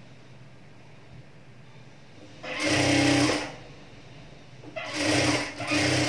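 Electric sewing machine stitching fabric in three short runs with quiet pauses between: one of about a second starting two and a half seconds in, then two shorter runs close together near the end.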